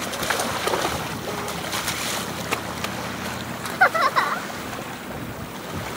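Small waves lapping on a pebbly shore while a child's feet splash in the shallow water, with a brief high child's cry about four seconds in.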